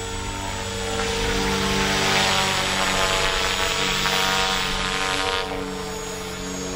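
Radio-controlled model helicopter flying, its rotor and motor giving a steady whine with a rushing swell of rotor noise that drops away sharply about five and a half seconds in.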